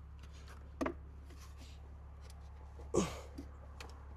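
Light clicks and knocks of cold air intake parts and fasteners being handled and pushed into place, with a sharper knock about a second in and a louder one about three seconds in, over a steady low hum.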